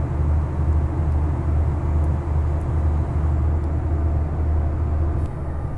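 Steady low hum with no distinct events, easing slightly near the end.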